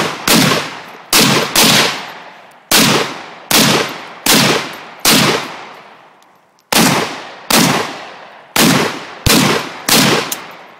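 AK-pattern rifle firing about a dozen single shots in steady succession, a little under a second apart, with one longer pause midway; each shot is loud and trails off in a long echo.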